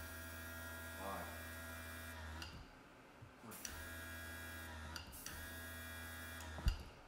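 Small electric airbrush compressor running with a steady hum in three spells, each one to two and a half seconds long with short pauses between, and a sharp knock as the last spell stops near the end.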